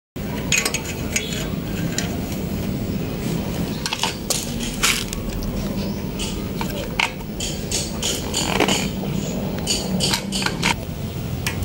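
Irregular light metallic clinks and taps of small engine parts being handled and fitted onto a small gasoline engine, over a steady low hum.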